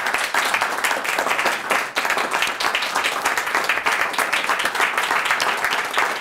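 Audience applauding: many people clapping at once in a steady, unbroken stream.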